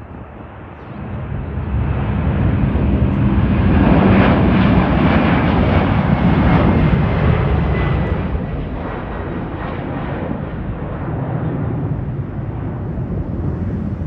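Boeing 767-400ER's twin GE CF6-80C2 turbofans at takeoff power: a deep jet rumble with a faint high whine. It swells from about a second in, is loudest as the jet passes and rotates, then eases slightly as it lifts off and climbs away.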